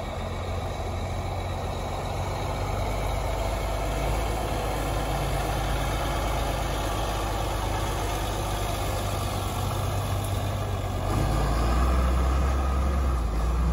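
John Deere cab tractor running under load with a disc mower cutting hay: a steady engine hum with an even hiss above it, growing louder about eleven seconds in as the tractor and mower pass close by.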